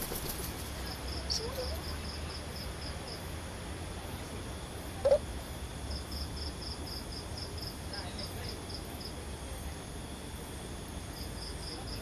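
Night insect chirping in high, evenly pulsed trains of about six pulses a second, each train lasting two to three seconds and coming three times, over a low steady hum. A single brief, loud squeak cuts in about five seconds in.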